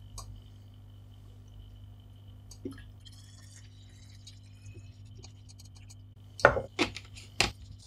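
Glassware clinking on a wooden bench: a few faint clicks, then three sharp clinks in the last second and a half, over a low steady hum.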